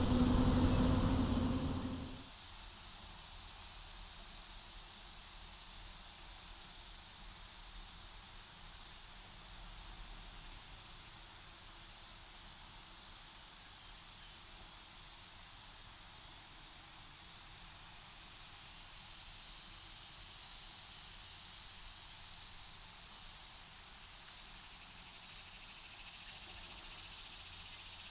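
Crickets chirping steadily, a constant high trill. A louder low hum with a steady tone cuts off about two seconds in.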